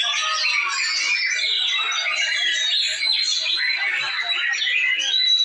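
White-rumped shama singing a fast, continuous song of rapid whistled phrases and trills, with other birds singing over it at the same time.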